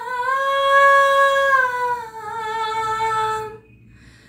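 A high female voice holding one long note of a Bengali song, the pitch sagging slightly before it ends about three and a half seconds in.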